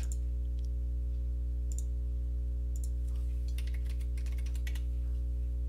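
Computer mouse clicks and keyboard taps while a dimension value is entered: a few scattered clicks, then a quick run of several about three and a half to five seconds in. Under them is a steady low electrical hum.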